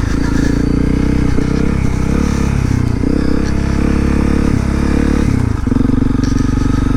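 2018 Honda CRF250L's single-cylinder four-stroke engine running as the bike is ridden, its note wavering with the throttle through the middle and holding steadier for the last second or so.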